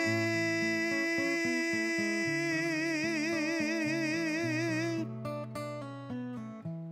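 A man's voice sings one long held "yeah" with vibrato over acoustic guitar; the voice stops about five seconds in and the guitar plays on alone.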